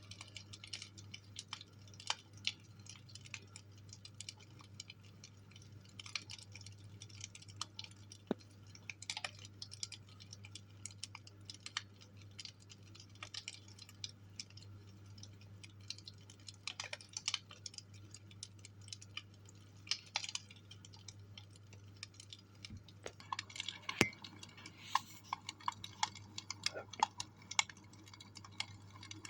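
Wood fire crackling in a fireplace: irregular sharp pops and snaps, busier near the end, over a steady low hum.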